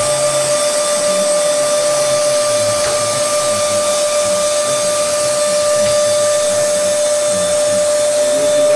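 Steady whine of running shop machinery, a constant pitched hum over an even hiss that holds level throughout.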